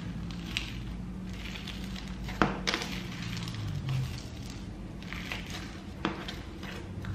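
Icy slime made with fake snow being squeezed and worked by hand, crunching and crackling with scattered small clicks; a sharp click about two and a half seconds in is the loudest.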